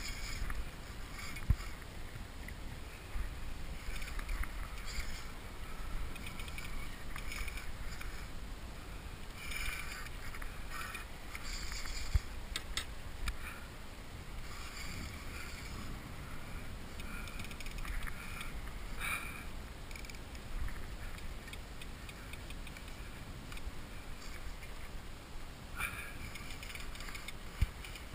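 Water and hull noise from a kayak on a river: a steady low rumble with short scratchy bursts now and then and a few sharp knocks.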